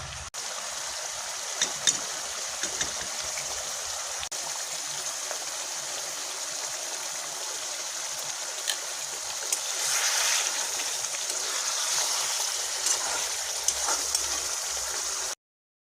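Food sizzling in a pan: a steady hiss with scattered small pops and clicks, swelling a little about ten seconds in and cutting off suddenly near the end.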